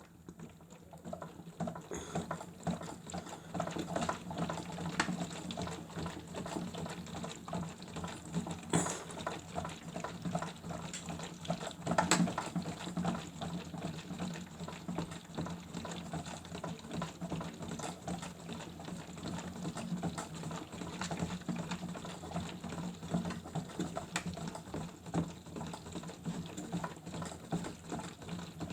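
Toy Miele W1 washing machine running a wash: its small motor hums steadily while water splashes and crackles inside the drum, with a few sharper clicks.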